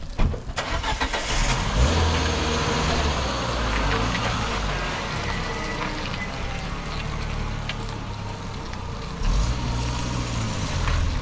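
Peugeot 405 sedan's engine starting and then running as the car pulls away slowly over wet ground. The engine note picks up again about nine seconds in.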